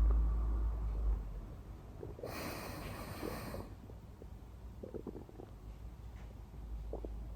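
Human stomach growling close to the microphone: a loud, deep, low rumble that fades about a second in, followed by scattered short gurgles. About two seconds in there is a rush of noise that lasts over a second.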